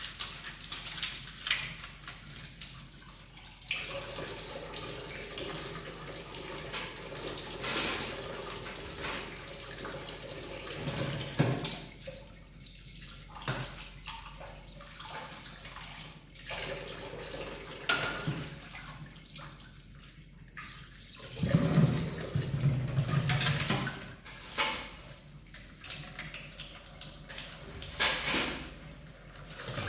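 Water running from a kitchen tap into a stainless-steel sink, on and off, while pots and dishes are washed, with clinks and knocks of metal and crockery.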